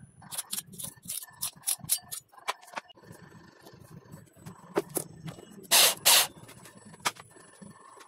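A run of quick scratchy scrapes and taps during the first few seconds, as a pen traces the outline of a metal heat sink onto plywood. Past the middle, an electric drill with a hole saw gives two short loud bursts against the plywood board.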